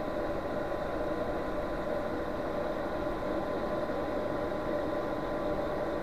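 Portable Chinese diesel heater's fan running at a steady pitch during its cool-down cycle after shutdown, purging the last of the hot air from the burner before the heater switches off.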